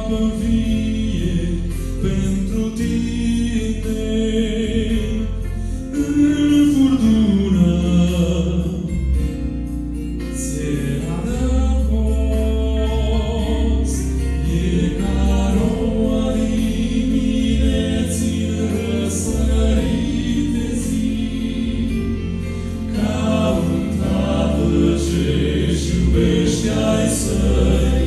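Male vocal quartet singing a Christian gospel song in close harmony into microphones, amplified through a PA, over a steady low bass underneath.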